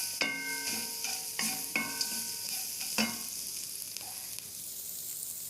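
Crab pieces frying in oil with turmeric and garam masala in a kadai, sizzling steadily while a spoon stirs them. The spoon knocks against the pan several times, each knock ringing on briefly, the last about three seconds in.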